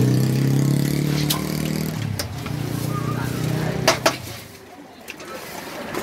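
A motor vehicle engine running close by, its hum steady and then dropping away, fading out about four and a half seconds in. Two sharp clicks come just before it fades.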